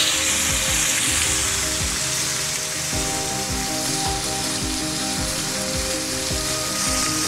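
Boneless ribeye steak sizzling steadily in oil in a hot pan, searing on its second side. Background music with a steady beat plays along.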